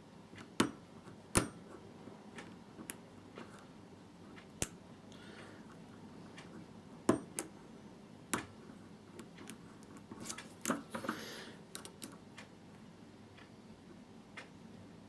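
Lock pick working the pins of a 5-pin WMS euro cylinder lock: irregular sharp metallic clicks of the pins being lifted and set, with a brief scraping rattle about ten seconds in.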